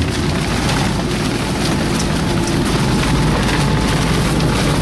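Sandstorm wind driving sand and grit against an armoured vehicle's hull and windows, heard from inside the cabin as a loud, steady rushing hiss with fine pattering ticks.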